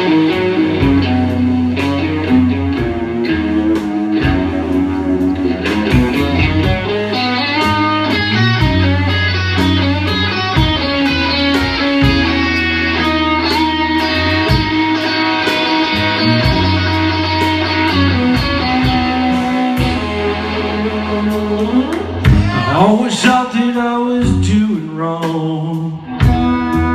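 Live rock band playing: distorted electric guitars over a drum kit, with steady drum hits and a rising sweep in pitch about 22 seconds in.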